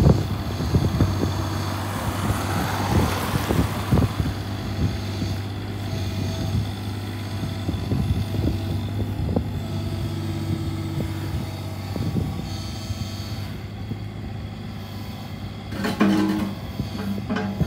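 Caterpillar 301.8C mini excavator's diesel engine running steadily while the boom, arm and bucket are worked, with repeated clanks and knocks from the arm and bucket. The clanking is heavier in the first few seconds and again near the end, as the bucket is swung out and lowered.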